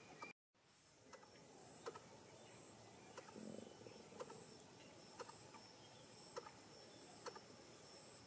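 Near silence: faint outdoor ambience with a thin high insect-like hum and soft ticks about once a second. The sound drops out completely for a moment near the start.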